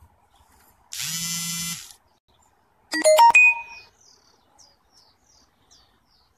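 An electronic buzz lasting under a second, then a quick run of clicks and chime-like tones, followed by a series of faint, short high chirps.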